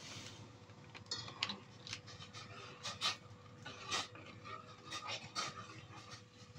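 A metal spoon stirring in a stainless steel saucepan, scraping and clicking against the pan in short, irregular strokes.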